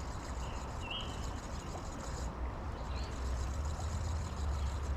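Steady rush of creek water under a low rumble, with a few short bird chirps over it.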